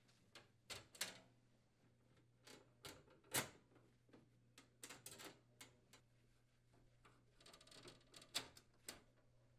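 Faint, irregular clicks and scrapes of a Phillips-head screwdriver turning out the screws that hold a wall oven's frame to its cabinet.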